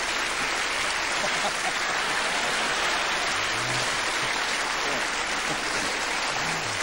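Studio audience applauding steadily, with a few brief voices faintly underneath.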